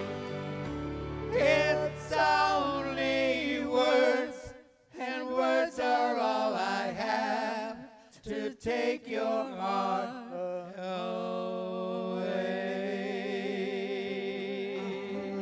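Singing with strong vibrato on long held notes over soft backing music, with no clear words; from about eleven seconds in a steady sustained chord takes over.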